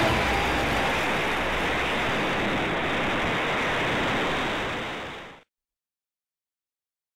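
Steady rush of wind over the microphone of a keyring camera riding on a flying model glider, fading out about five seconds in.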